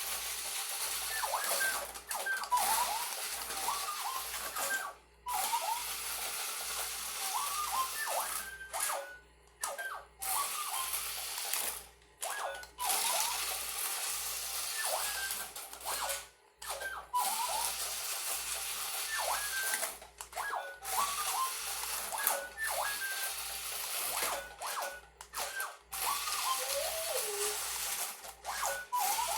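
Small electric motors of a remote-control Star Wars droid toy whirring in short spurts as it drives, stopping and starting every few seconds, with the toy's electronic droid bleeps and chirps, short rising whistles throughout and a falling one near the end.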